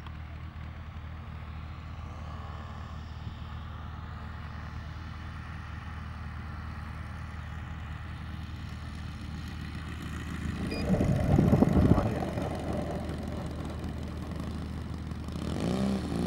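Saito FG-57T model-aircraft engine running steadily at low throttle as the RC Cessna 195 glides in and lands. A louder rush of noise swells about ten seconds in. Near the end, the engine's pitch rises and falls in short throttle blips as the plane taxis on the grass.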